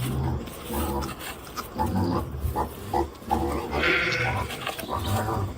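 Animal calls: a run of short, low calls repeating about once a second, several animals together.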